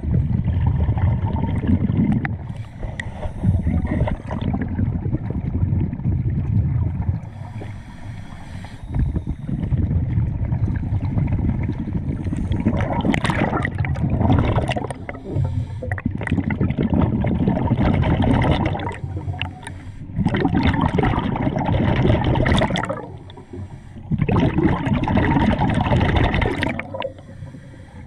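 Scuba diver breathing through a regulator underwater: long noisy bursts of exhaled bubbles alternating with hissing inhalations, repeating every few seconds.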